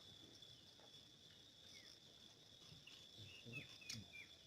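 Faint steady high-pitched insect drone, like crickets, with scattered short falling chirps and a sharp click near the end.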